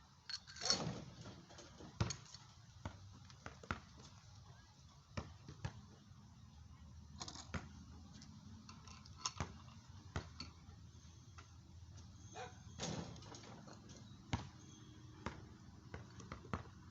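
Irregular clicks and knocks of small metal tools and parts being handled and set down while a shock absorber bushing is fitted, the loudest knocks about a second in, around two seconds in and again near thirteen seconds.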